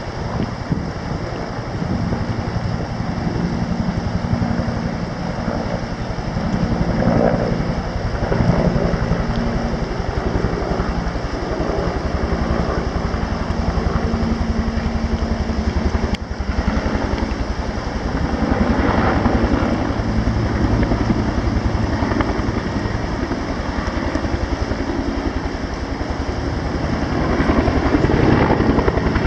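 Rescue helicopter's engine and rotor running steadily and loudly, with the rotor beating throughout.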